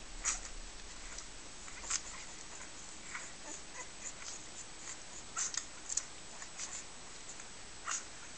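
Newborn Dalmatian puppies nursing, giving scattered short, high squeaks at irregular intervals over a faint steady hiss.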